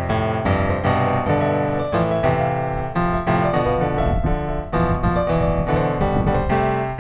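Background piano music, notes struck in a steady run of chords.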